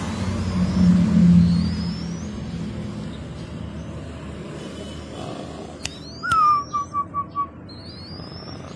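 Zebra dove (perkutut) cooing about six seconds in: one short falling note followed by four quick, evenly spaced notes. Faint high rising bird chirps come and go, and a low vehicle rumble is loudest in the first two seconds.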